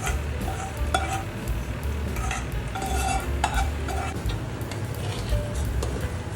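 A metal spoon stirring and scraping in a metal cooking pot, with scattered clinks and short metallic rings against the pot, over a steady low hum.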